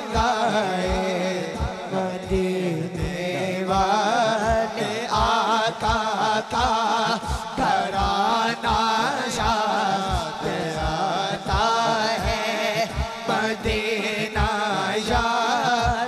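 A man singing a naat in long, wavering, ornamented notes over a steady low drone, with a quick regular low beat underneath.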